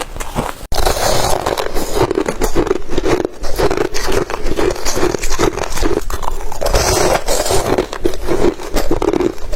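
Crushed ice being bitten and crunched between the teeth: a dense, irregular run of crisp crunches, with a sudden break under a second in before the crunching resumes louder.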